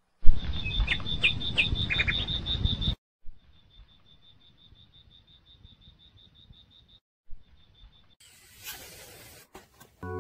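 Outdoor garden ambience: a high, rapid chirping that repeats evenly about eight times a second, with a few other bird chirps and a low rumble on the microphone in the first three seconds. The sound cuts out abruptly twice, and a hiss takes over near the end.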